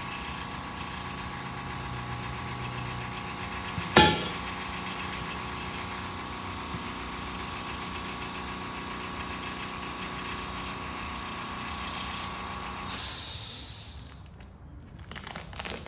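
Air compressor running with a steady hum, with one sharp knock about 4 s in. Near the end the motor cuts off and a loud hiss of released air follows and fades, as a compressor does when it reaches pressure.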